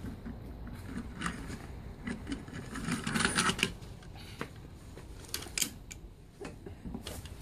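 Scattered light clicks and knocks, irregularly spaced, with a short busier patch of rattling about three seconds in: plastic toys being handled and knocked together.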